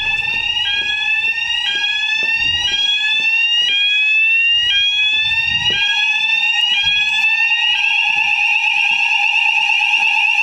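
Electronic fire alarm sounders going off during a weekly alarm test. A rising sweep repeats about once a second over a steady lower tone, and about seven and a half seconds in the sweep gives way to a fast warbling tone.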